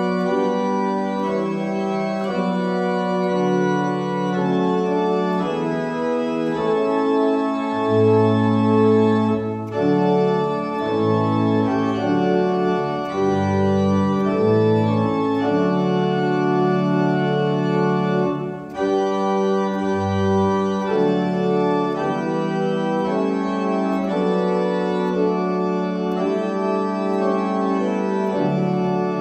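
Organ playing slow, held chords in a hymn-like piece, the postlude music after the benediction.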